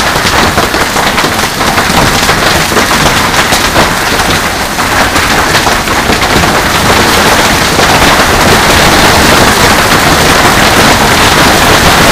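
Heavy hail pelting down on a swimming pool and hard ground in a dense, continuous clatter of hits, getting louder past the middle.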